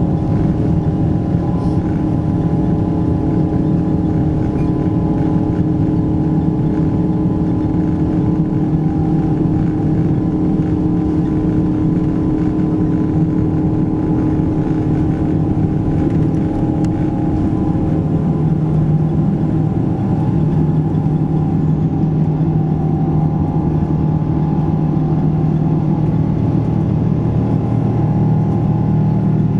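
Boeing 777-200ER's jet engines at takeoff power, heard inside the cabin over the wing: loud, steady engine noise with low rumble and several steady tones. About two-thirds of the way in the low tones shift as the jet leaves the runway and climbs.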